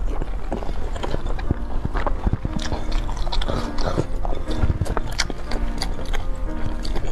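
Close-miked biting and chewing of a crispy, chili-coated skewered food, with many sharp crunching crackles as she chews.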